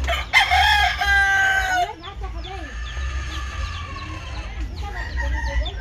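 A rooster crowing once, loudly, for nearly two seconds, the call held steady and then falling at its end. Short high chirps repeat throughout over a low steady hum.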